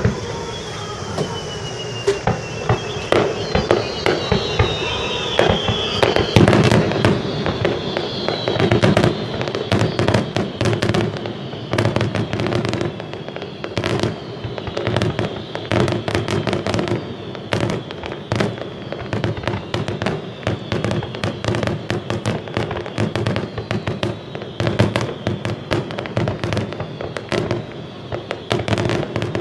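Fireworks going off in quick succession: a dense string of sharp pops and crackles, with falling whistles high up during the first several seconds.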